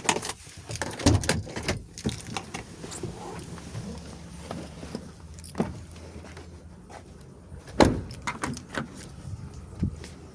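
Clicks and knocks of things being handled around a car, over a steady low hum, with the loudest thump about eight seconds in.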